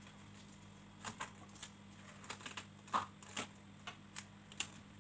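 Plastic cling film crinkling and crackling in scattered short clicks as it is pulled off the roll and pressed over the mouth of a glass jar.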